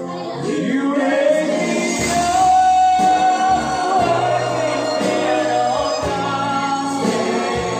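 Singing over musical backing, the voice holding long notes that bend in pitch, with one note held for about a second near the middle.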